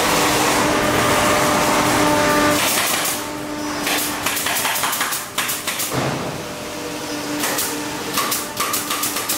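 Pneumatic nail gun firing into a plywood frame: sharp clacks, a few together about halfway through and a quicker string near the end. Before them, for the first couple of seconds, a loud steady rushing noise.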